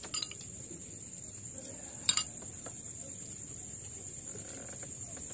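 Crickets trilling steadily and high-pitched, with a short clatter of tableware just after the start and a louder clink about two seconds in.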